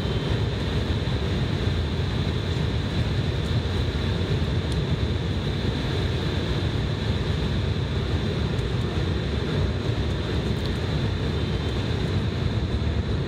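Steady cabin noise inside an Embraer ERJ-175 on final approach: the rush of air over the fuselage and the hum of its twin GE CF34 turbofan engines, with a thin high whine held throughout.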